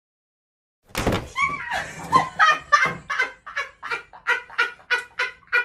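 A person laughing hard in a long run of short "ha" bursts, about three a second, starting about a second in.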